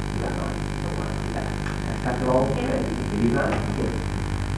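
A steady low hum with even overtones runs under the recording. Brief murmured voices rise over it about two seconds in and again about three and a half seconds in.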